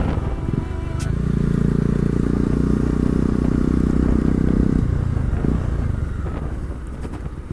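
Bajaj Dominar motorcycle engine running under way, its note steady, then easing off and dropping in level about five seconds in.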